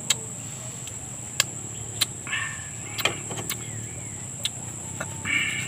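Close-up eating sounds of ripe mango: a series of sharp, wet clicks and smacks at irregular moments, over a steady high-pitched insect drone.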